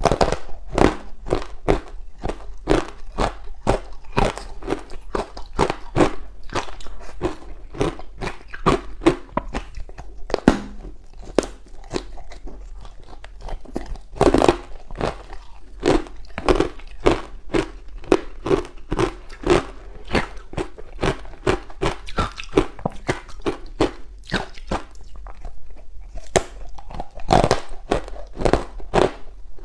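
Ice pieces coated in matcha powder being bitten and chewed: a fast, continuous run of crunches and crackles, with a few louder bites standing out.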